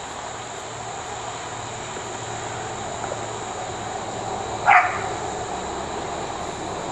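An Australian Shepherd gives one short bark about two-thirds of the way through, over a steady background hiss.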